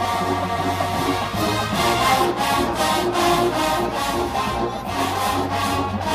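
College marching band playing live: massed brass holding sustained chords over a drumline keeping a steady beat.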